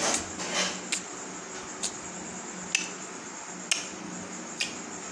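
Baby swing clicking as it sways on its ropes: five short, sharp clicks a little under a second apart, over a steady low hum, with a brief rustle at the start.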